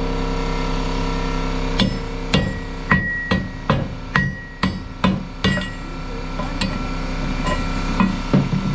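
Hammer striking steel, about nine quick blows in a row with a metallic ring after some of them, then two more blows near the end, over a steady machine hum.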